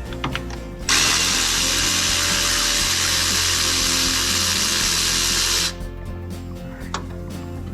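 A power tool runs steadily for about five seconds as an even hiss, starting about a second in and cutting off suddenly. It is in use on the head-bolt removal of a Range Rover 3.5 V8.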